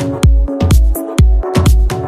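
Electro-pop dance music: a four-on-the-floor kick drum at about two beats a second under sustained synth chords and hi-hats.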